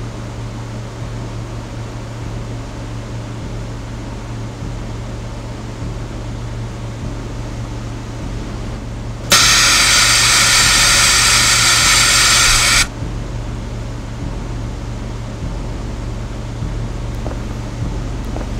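Steady low drone of a horror soundtrack, a hum with hiss like a machine room. About nine seconds in, a loud burst of harsh static breaks in and cuts off suddenly after about three and a half seconds.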